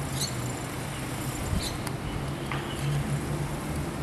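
A wheel-lift tow truck's engine idling with a low steady hum, with a few short high chirps over it.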